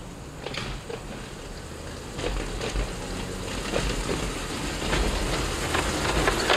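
Quarter-scale model streetcar rolling along its track: a rumble of wheels on rail with irregular clicks, growing louder as it approaches.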